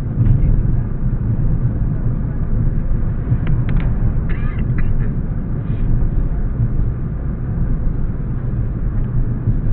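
Steady low rumble of a car driving, road and engine noise. A few short, higher-pitched chirps or squeaks come about four seconds in.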